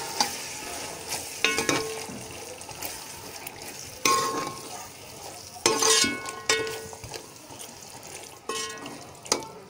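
Chickpeas sizzling in masala while a metal spoon stirs them around a metal pot. The spoon knocks against the pot about six times, and each knock rings briefly.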